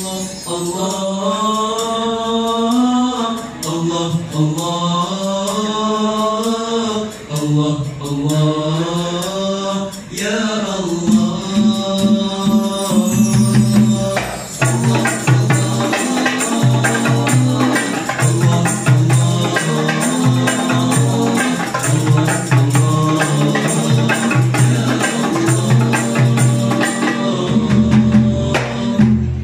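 A group of teenage boys singing a nasyid-style song with hand-percussion accompaniment on congas, djembe and bar chimes. The voices lead with light percussion at first, and the drumming fills in about eleven seconds in.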